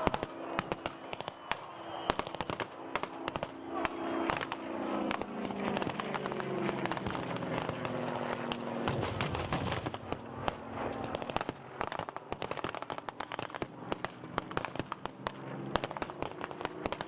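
Irregular small-arms blank fire, rifles and machine guns, with many sharp shots in quick, uneven succession over a lower continuous drone.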